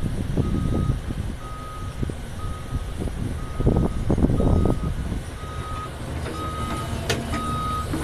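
Caterpillar 336 Next Gen hydraulic excavator running and digging into rocky clay, its engine surging under load twice, with a few sharp rock knocks near the end. A backup alarm beeps about once a second throughout, louder toward the end.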